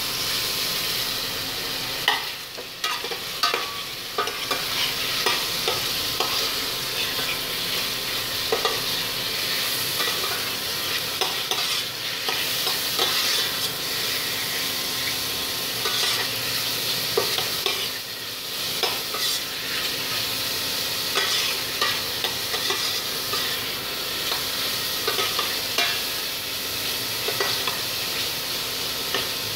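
Pork cubes sizzling as they fry in melted butter in a stainless steel pot. A metal spoon stirs them throughout, scraping and clicking against the pot's bottom and sides.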